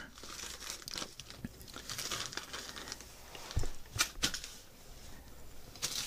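Crinkling and rustling of a small plastic bag of metal crimp terminals being handled, with a few light knocks about four seconds in as things are set down on the desk.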